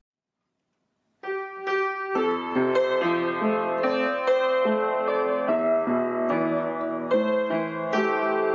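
Piano playing the introduction to a worship hymn, a run of changing chords that starts abruptly about a second in after silence.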